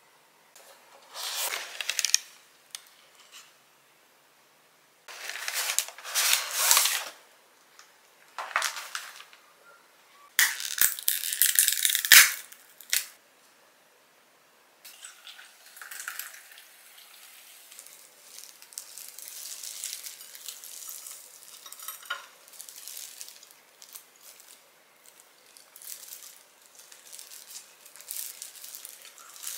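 Paper and plastic takeaway food packaging rustling and crinkling as it is handled, in several loud bursts through the first thirteen seconds, the loudest about eleven seconds in. After a short pause, softer continuous rustling follows, with a few light clicks.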